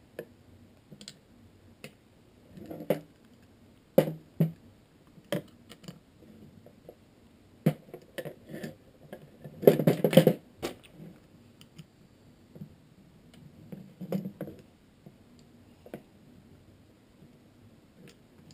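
Scattered clicks and light knocks of a hex key and small metal parts being handled while working on a screw in a Hi-Capa gas pistol, with the busiest, loudest run of knocks about ten seconds in.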